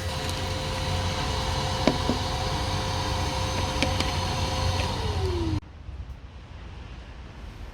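Nilfisk Multi II wet and dry vacuum cleaner motor running steadily with a constant whine, with a few sharp clicks. About five seconds in its pitch falls as it begins to wind down, and the sound then cuts off abruptly.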